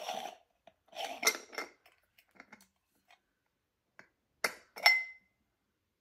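Metal parts of a stovetop moka pot clinking as it is taken apart by hand: a short clatter about a second in, then two sharp clinks half a second apart near the end, the second ringing briefly.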